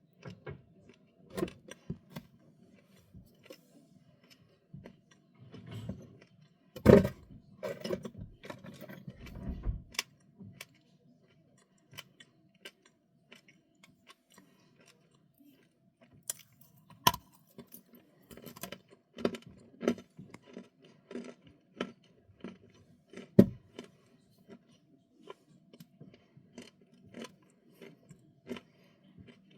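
Close-miked crunching of small, dry, crunchy snacks being bitten and chewed: irregular crisp cracks and crackles, with a few louder crunches about 7, 17 and 23 seconds in.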